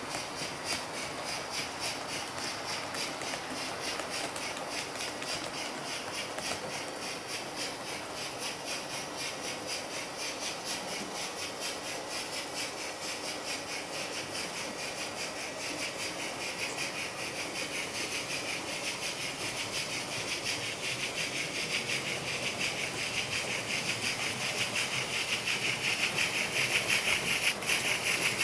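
HO-scale model steam locomotives' DCC sound decoders (a Roco BR 052 2-10-0 and a Fleischmann BR 94 0-10-0T) playing steady rhythmic steam chuffing with hiss through their small speakers. The sound grows louder over the last few seconds as the BR 94 tank engine runs close by.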